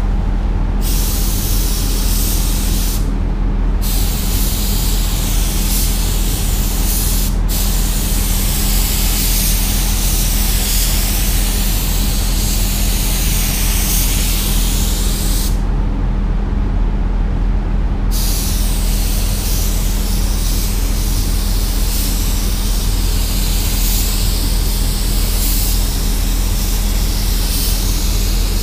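DeVilbiss gravity-feed spray gun hissing as it sprays primer. The hiss cuts off briefly about 3 s in, for a moment around 7 s, and for about two seconds around 16 s as the trigger is released. A steady low hum runs underneath.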